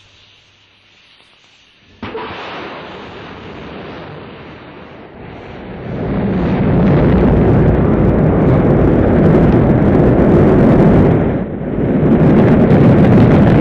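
Rocket launch: after a short hush, the noise comes in suddenly about two seconds in and swells into a loud, deep, steady rumble of rocket engines at liftoff, dipping briefly near the end.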